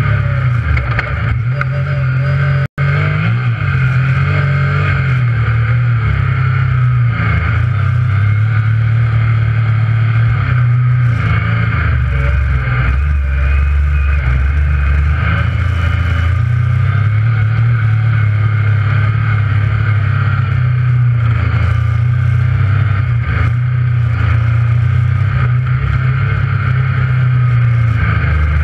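Yamaha YXZ1000R side-by-side's three-cylinder engine running under way from inside the cab, its note rising and falling with the throttle. The sound cuts out for an instant about two and a half seconds in.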